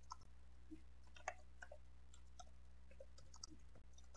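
Faint, scattered computer keyboard key clicks, a few irregular taps, over a steady low background hum.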